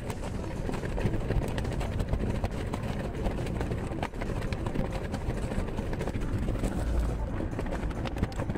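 Car driving along, heard from inside the cabin: a steady low rumble of engine, road and wind noise, with frequent small clicks and rattles through it.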